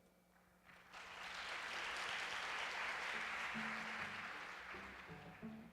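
Audience applauding, swelling about a second in and fading away over several seconds, with a few short low notes from an instrument in the second half.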